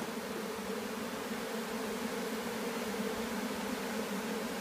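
A mass of honey bees, a freshly hived swarm that the beekeepers take for Italians, buzzing in one steady, even drone with no breaks.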